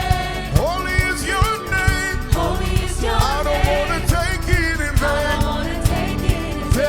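Live gospel worship music: a voice sings bending, sliding runs over a full band, with drums keeping a steady beat.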